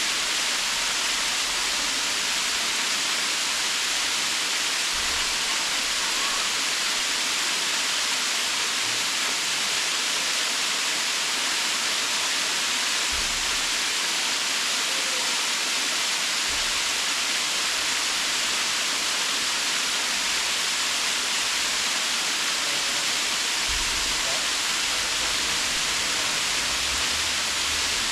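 Waterfall: a steady, unbroken rush of falling water, bright and hissy.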